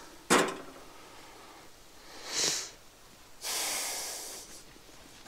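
A sharp knock, then a person sniffing and letting out a long, breathy exhale that starts suddenly and trails off.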